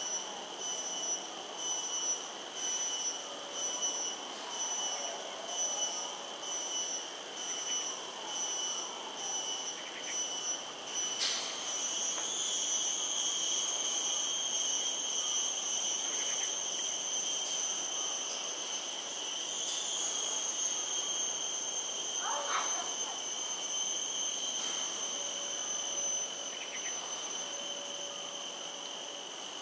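A shrill, high insect whine that pulses about once a second, then about ten seconds in merges into one steady unbroken drone that slowly fades.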